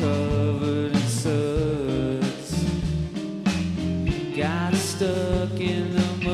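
Live rock band playing a passage between sung lines: drums hitting steadily over a bass line, with sliding melodic notes on top.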